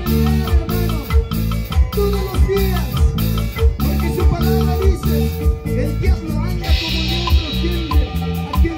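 Live band playing an instrumental passage of Latin-style worship music: quick plucked harp notes over electric bass and a drum kit with a steady beat, with cymbals washing in about seven seconds in.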